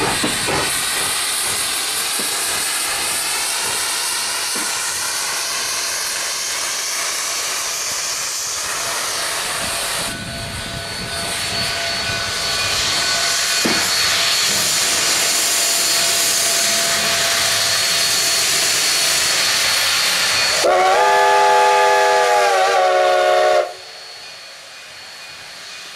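Steam locomotive letting off steam with a steady loud hiss, then its chime steam whistle sounds one blast of several notes together, about three seconds long, cutting off sharply near the end.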